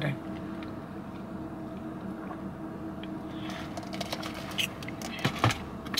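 A drink sipped through a straw from a plastic cup, heard as faint slurps and small clicks that come mostly in the second half, over a steady low hum inside the car.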